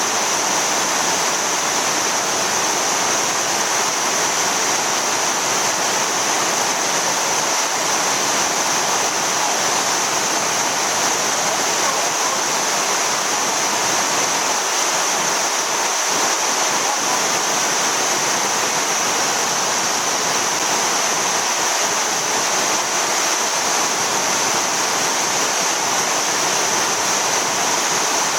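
Yudaki waterfall's water rushing steadily down its sloping rock face, a constant loud roar of falling water.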